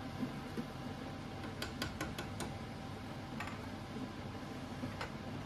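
Soaked rice poured from a plastic bowl into a pot of boiling water, over a steady bubbling hiss. A few light clicks come in a quick cluster about two seconds in, with one or two more later.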